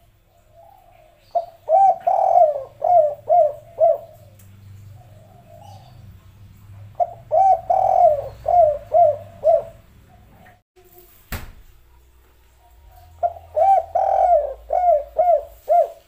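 Spotted dove cooing, three phrases about five seconds apart, each a longer coo running into a quick string of short notes. A single sharp click about eleven seconds in.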